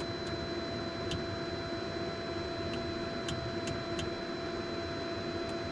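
Steady hum and whine of a Cessna Citation Mustang's powered-up cockpit avionics and cooling fans with the engines not yet running, with a few faint clicks as controls are set.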